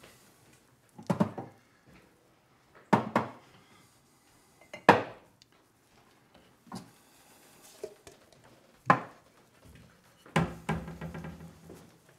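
Kitchen crockery being handled: about five sharp clinks and knocks of mugs and dishes taken from a cupboard and set down, each a second or two apart, with a longer clatter near the end.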